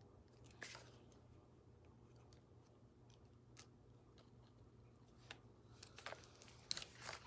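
Faint clicks and taps of tweezers lifting adhesive rhinestones off their backing sheet and pressing them onto a paper card: a few spaced-out clicks, then a quicker cluster of small clicks and paper rustling near the end.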